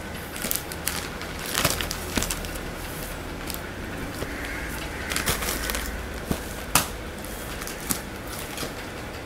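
Clear plastic packaging of bedsheet sets crinkling and rustling as the packs are handled and flipped over, with irregular sharp crackles, the sharpest about seven seconds in.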